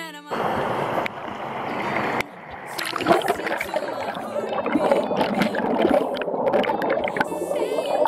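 Moving water gurgling and splashing, a dense churning sound with small splashes. It follows a steady rush that stops about two seconds in, just after a guitar song cuts off.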